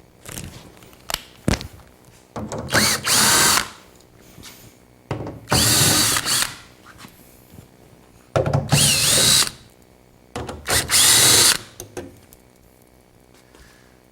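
Power drill run in four short bursts of about a second each, its motor whine rising and falling with each run.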